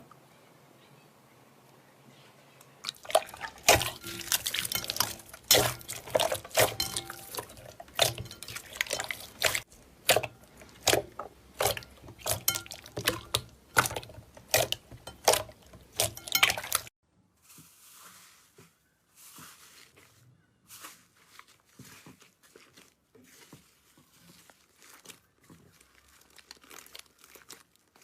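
Slime being squeezed and worked by hand, giving a dense run of wet clicks and pops after a quiet start. About seventeen seconds in it cuts off abruptly, leaving only faint, soft crackles.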